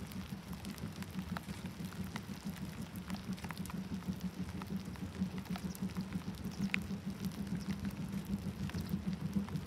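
Rain falling, with scattered raindrops ticking close by, over a steady low rumble that slowly grows louder: steam locomotive 65 018 approaching with its freight train.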